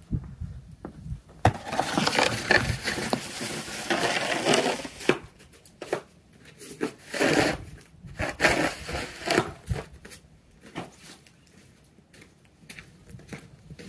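Plastic snow shovel scraping and crunching through snow in several strokes, the longest lasting about three seconds, with a few sharp knocks between them.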